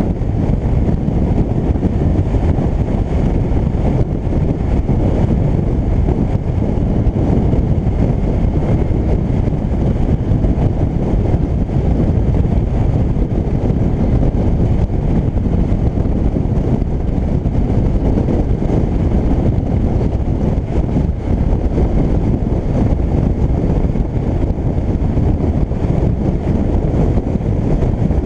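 Yamaha DragStar Classic motorcycle's V-twin engine running at steady cruising speed, a dull low rumble mixed with wind buffeting on the action camera's microphone.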